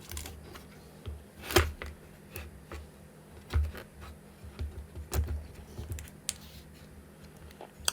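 Scattered light clicks, taps and low knocks of plastic parts being handled, as an LCD panel with foam is pressed into a 3D-printed plastic case, over a faint steady hum.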